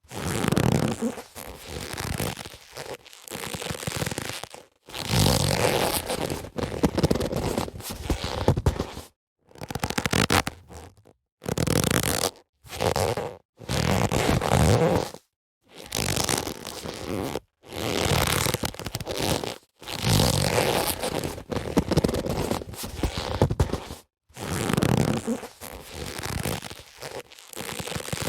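Boxing gloves being handled and rubbed: a run of short takes of scraping, creaking friction, each lasting a second or two, with brief silent gaps between them.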